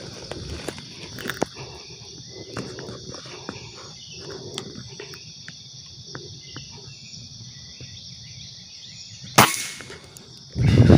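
Steady high-pitched drone of forest insects with a few small clicks, then about nine seconds in a single sharp air-rifle shot. A loud burst of noise starts just before the end.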